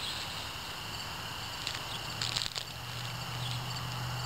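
A Canada lynx chewing and mouthing a plush toy in grass: a few short crackles and rustles about two seconds in, over a steady low hum that grows louder near the end.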